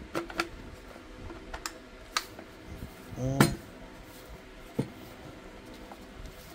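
Sharp plastic clicks and knocks from a Tefal steam iron's plastic housing being flexed and handled to check the newly screwed repair, with a short creak about three seconds in.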